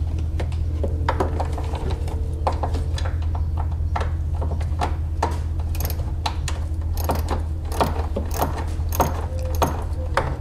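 Hand ratchet with a Torx T25 bit clicking in quick runs as screws are backed out, the clicks coming thicker in the second half. A steady low hum runs underneath.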